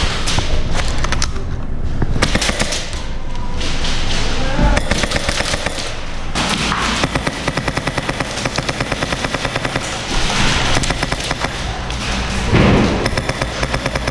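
Airsoft rifles firing rapid full-auto bursts, with a fast, even rattle of shots for a few seconds in the middle.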